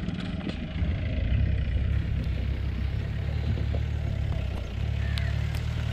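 Diesel engine of a Mahindra off-road jeep running steadily on a rough dirt track, with light clatter from the vehicle.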